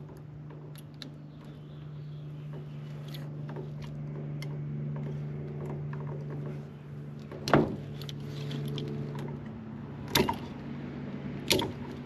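Hand work stripping the insulation off a thick electrical wire: light scraping and handling noises with three sharp clicks, one about halfway through and two near the end, over a steady low hum.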